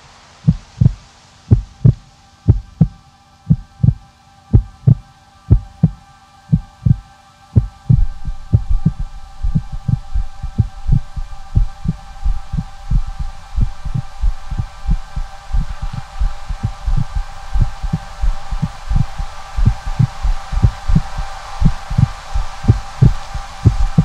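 Background soundtrack of deep, regular heartbeat-like thumps, about two a second. A held chord of steady tones comes in about eight seconds in and swells slowly under the beat.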